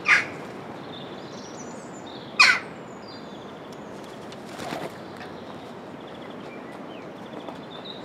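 Jackdaws calling: two loud, short calls, one at the very start and one about two and a half seconds in, then a fainter one near five seconds, over faint high chirping.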